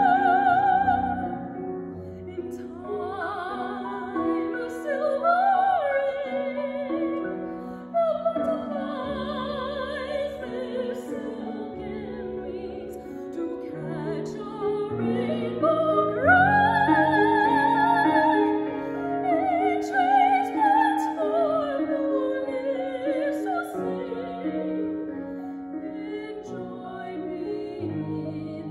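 A woman singing an art song in a trained classical voice with vibrato, accompanied by a Steinway grand piano. Her loudest held high note comes a little past halfway.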